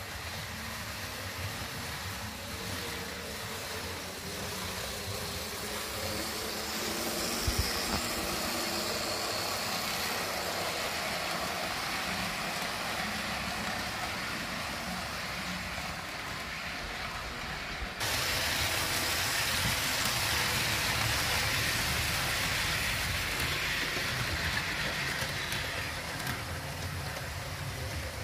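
HO-scale model train running on the layout's track: a steady rolling, whirring noise that abruptly gets louder about two-thirds of the way through.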